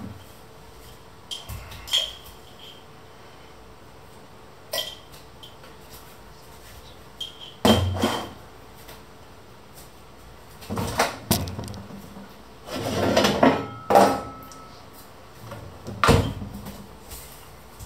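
Scattered kitchen clatter: knocks and clinks of dishes and utensils being handled and set down, a handful of separate strikes a second or two apart, some ringing briefly.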